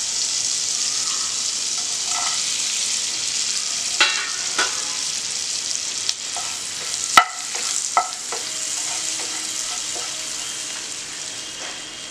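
Whole spices (bay leaf, cardamom, cinnamon, cloves, peppercorns, fennel and cumin) sizzling in melted butter in a non-stick pan, as they are tempered. A few sharp clicks come in the middle, the loudest about seven seconds in, and the sizzle slowly dies down toward the end.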